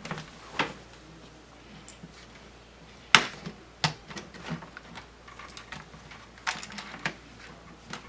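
Laptop hinges and plastic and metal parts being handled and pressed into place: scattered sharp clicks and taps, the loudest about three seconds in.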